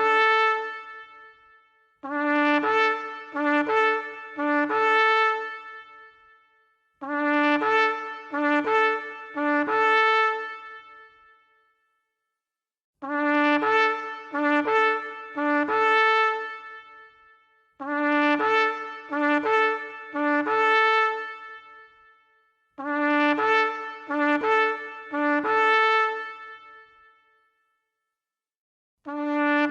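Ram's-horn shofar sounding repeated calls: groups of short blasts, each group fading away before the next begins about every five seconds. A long, wavering blast starts near the end.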